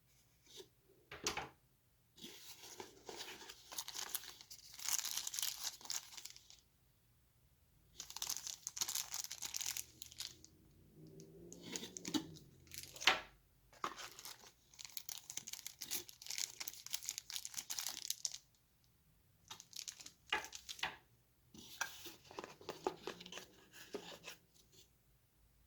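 Packaging being handled and opened: plastic and paper crinkling and tearing in several bursts with short pauses between them, and a sharp click about halfway through.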